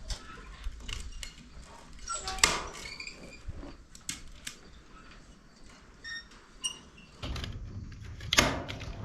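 Chicken wire being handled and fastened to a wooden frame: scattered clicks and light rattles, with two louder sharp snaps, one about two and a half seconds in and one about eight and a half seconds in.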